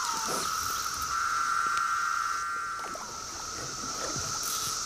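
Chorus of 17-year periodical cicadas: a dense, steady buzzing drone with a thinner, higher hiss above it, easing slightly about three seconds in.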